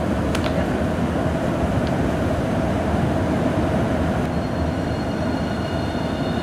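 Steady running noise of a passenger train heard from inside the carriage: a continuous low rumble with a couple of light clicks, and a faint high whine that joins about four seconds in.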